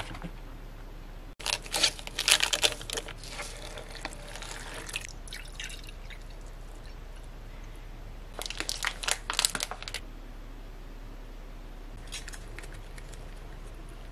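Crinkling and tearing of an instant-noodle cup's foil lid and plastic packaging for the first few seconds. About eight seconds in, makgeolli is poured from a plastic bottle into a glass.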